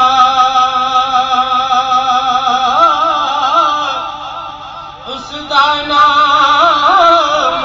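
A man singing a naat through a microphone: one long held note, then wavering, ornamented runs. The voice drops away briefly just after the middle and comes back with more runs.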